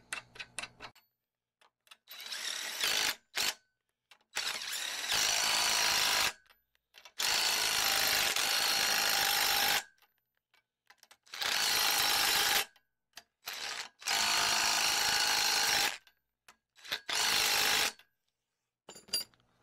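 Cordless driver spinning a socket to run tapered lug-style nuts down onto the studs of a Dana 60 kingpin cap, in six or seven spurts of one to three seconds each. A few light clicks of parts being handled come at the very start.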